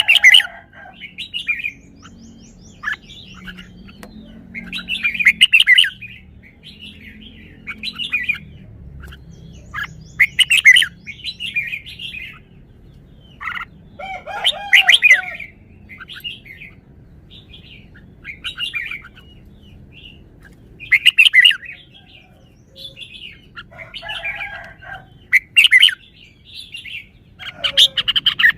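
Red-whiskered bulbul singing: short, loud, warbling phrases repeated every two to three seconds.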